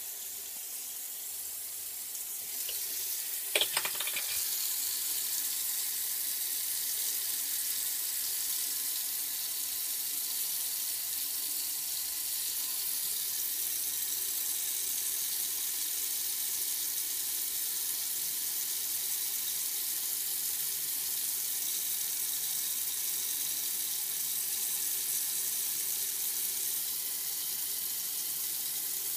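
Bathroom sink faucet running in a steady hiss, with a brief clatter about three and a half seconds in.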